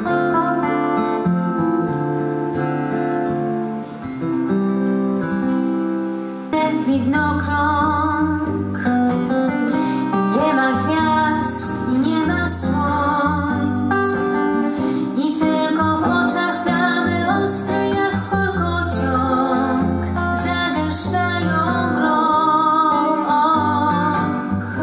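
Two acoustic guitars playing a slow ballad, ringing chords at first and then a fuller strummed accompaniment with bass notes from about six seconds in. A woman sings over them.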